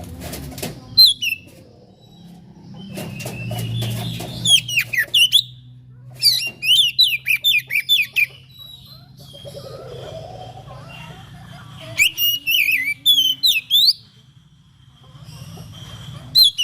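Oriental magpie-robin (kacer) singing in short bursts of quickly gliding whistled notes, including a fast run of repeated notes, with pauses between phrases. Brief rustling clicks fall between the phrases over a low steady hum.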